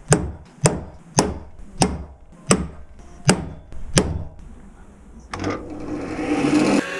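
A hammer striking a centre punch on steel flat bar seven times, a sharp ringing tap every half second or so, marking the hole positions. Near the end a bench drill press starts running.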